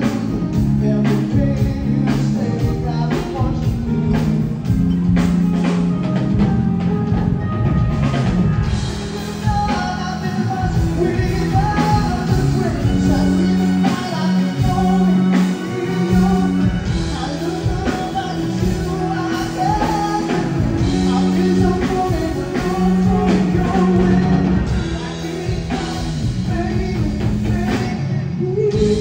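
Live band playing a song: a singer's vocals over bass guitar, keyboard and drums, with a steady drum beat.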